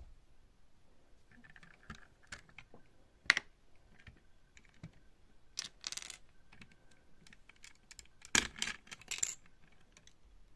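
LEGO bricks being handled: scattered small plastic clicks and clatters, with louder rattling about a third of the way in, around the middle, and near the end.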